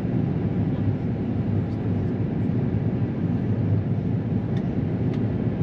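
Airbus A350-900 cabin noise heard from a mid-cabin seat: a steady, even low rumble of the Rolls-Royce Trent XWB engines and airflow.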